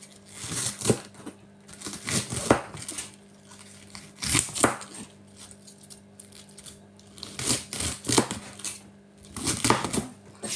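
Kitchen knife cutting through food and knocking on a plastic chopping board, in five short runs of strokes with pauses between them. The board gives a fairly quiet knock, not very noisy.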